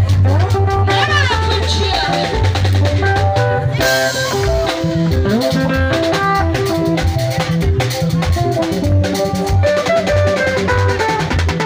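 Live band music: a drum kit keeps a steady beat under electric guitar and other melodic lines, playing without a break.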